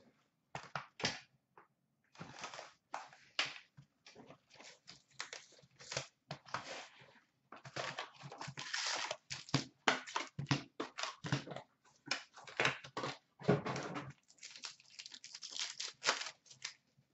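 Card packaging being handled and torn open: a hockey card hobby box opened and a foil card pack ripped and crinkled. It comes as many short, irregular crackles and rustles with brief pauses between them.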